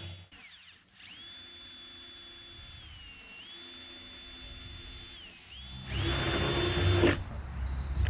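A DeWalt cordless drill with a 3/8-inch round burr bit spins up and runs with a high whine that dips and recovers twice as the speed changes, gouging foam core out of the bulkhead edge. Near the end it gets louder and rougher as the burr bites into the foam, then it stops abruptly.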